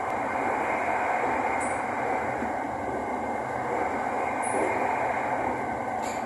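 Steady running noise heard inside the cabin of an SRT Light Red Line electric commuter train travelling at speed, with a brief click near the end.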